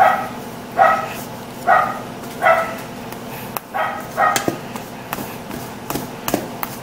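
Dog barking, about six short barks a little under a second apart, stopping about two-thirds of the way in. A few light metal clicks follow: a pastry blender cutting butter into flour against a stainless steel mixing bowl.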